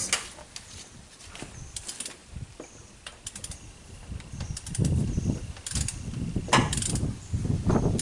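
A socket ratchet clicking in groups as the Toyota 1NZ four-cylinder engine is turned over by hand on the crank bolt, with heavier low knocks and rubbing in the second half. The oil just squirted into the cylinders gives the engine a little compression resistance.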